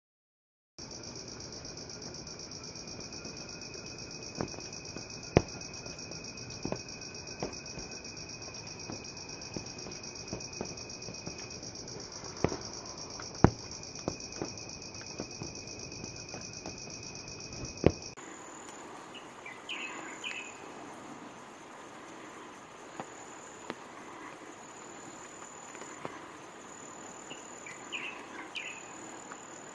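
Forest insect chorus: a steady, high-pitched drone with a second, lower steady tone, broken by scattered sharp clicks. About 18 seconds in the sound changes abruptly to a fainter, hissier insect chorus with an on-off high trill and a few short bird chirps.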